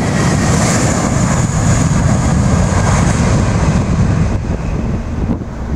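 Jet airliner's engines roaring as it passes on its takeoff run, a faint high whine over a heavy rumble, easing off about four seconds in. Gusty wind buffets the microphone.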